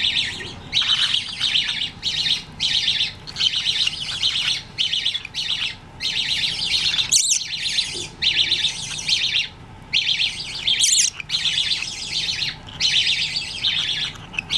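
Pet budgerigars chattering in quick bursts of warbling, with two short, shrill calls: one about seven seconds in and one near eleven seconds.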